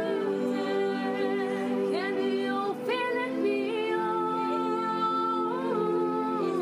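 Slow worship music: a woman's voice singing long held notes with slides between them, without clear words, over sustained chords.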